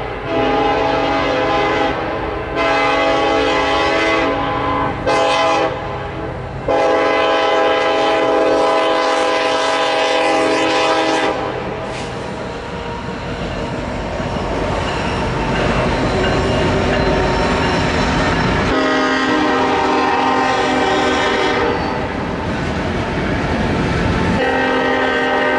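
BNSF diesel locomotive's multi-chime air horn sounding the grade-crossing signal of two long blasts, a short one and a long one. Between the blasts comes a steady rumble of the loaded coal train's wheels on the rails. Several more long horn blasts sound from about two-thirds of the way in, for the next crossing.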